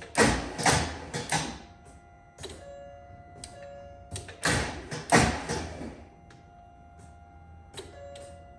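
Starter cranking the Mercedes S63's M156 V8 in two short tries of about a second and a half each, about four seconds apart, without the engine catching: the hard-start fault the owner has not traced despite a new starter and crank sensor. A steady electronic chime sounds between the tries.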